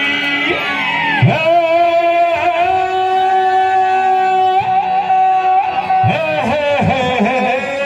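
A male singer sings through a microphone and PA over instrumental accompaniment. He holds one long note for about three seconds, then moves into a sliding, ornamented phrase near the end.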